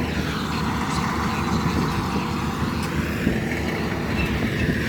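Steady engine rumble with a broad rushing noise that swells and fades in the middle.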